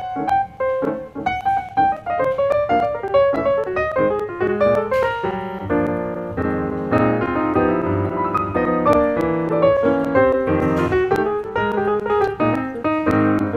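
Background piano music: a melody played over chords.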